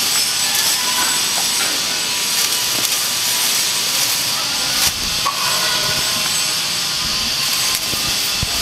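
A hand rubbing and pressing a plastic waterproofing membrane sheet against a wall: rasping scrapes over a steady high hiss.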